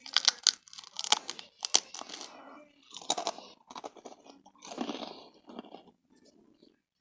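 A person chewing crunchy chips close to the microphone: a run of irregular, loud crunches that stops about six seconds in.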